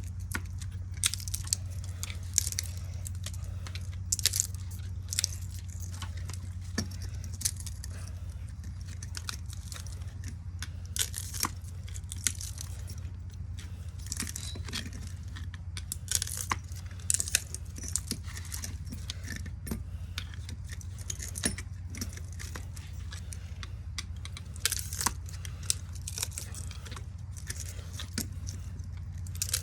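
Irregular metallic clicks, clinks and scrapes from hand work pulling copper wire windings out of a ceiling-fan motor, over a steady low hum.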